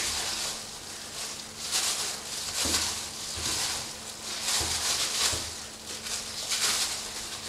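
Butcher's knife cutting and trimming raw pork on a steel table: a series of irregular soft swishes and rustles, with a few low dull thumps in the middle.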